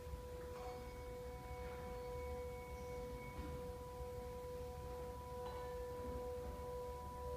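Handbell choir ringing brass handbells: a chord of long, steady notes held ringing, with fresh bells struck about half a second in and again about five and a half seconds in.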